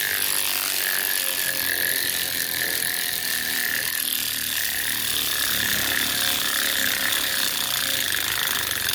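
Ryobi 4-volt cordless ratchet's motor and gearbox running steadily with a high whine while driving a 2.5-inch construction screw with no pilot hole; it cuts off suddenly at the end.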